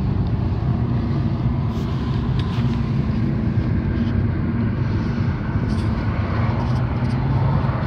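Cabin sound of a BMW E46 316i's 1.9-litre four-cylinder engine pulling the car along a city road, with tyre and road noise. A steady low drone with a few faint clicks now and then.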